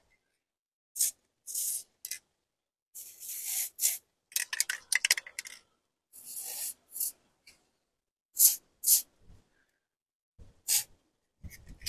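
Aerosol can of WD-40 Specialist lithium grease spraying in short hissing bursts, about eight of them with one longer spray about three seconds in. The grease is going into the windscreen wiper linkage pivots to free up slow-moving wipers.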